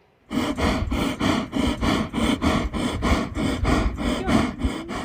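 Yak grunting: a fast, steady run of short, rough grunts, several a second.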